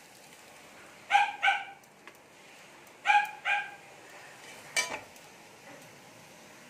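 Dog barking in two quick double barks, about a second in and about three seconds in, then one short sharp sound near five seconds; the owner takes it to be barking at someone it has seen.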